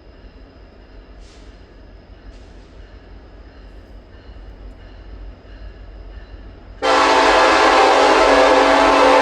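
A faint low rumble, then about seven seconds in a locomotive's air horn comes on suddenly and holds a loud, steady multi-note chord.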